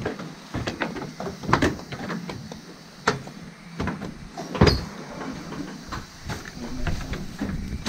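Footsteps in sandals and a suitcase knocking on a wooden staircase: irregular thumps and clacks, the loudest about a second and a half in and again near five seconds.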